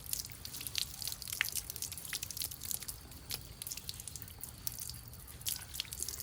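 Water dripping in quick, irregular drops while bay leaf seedling roots are rinsed free of soil and small stones.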